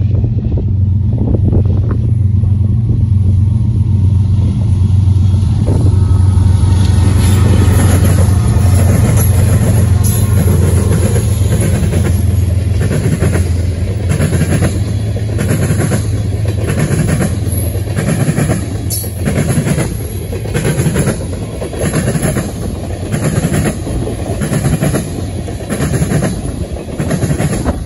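A freight train of tank cars passing, led by its diesel locomotives (an EMD SD75I and a GE ES44DC): a strong steady low engine drone for the first dozen seconds, then the cars rolling by with a steady clickety-clack of wheels over rail joints.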